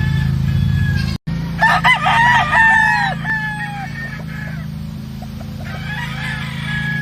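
Roosters crowing: one loud crow about a second and a half in, with fainter crows from other birds afterwards, over a steady low hum.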